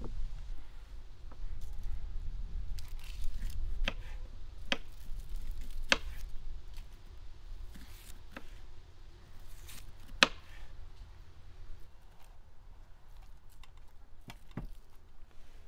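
Knife cutting onion and other food, a few sharp, crisp cuts and clicks spaced seconds apart, the loudest about ten seconds in, over a low rumble during the first few seconds.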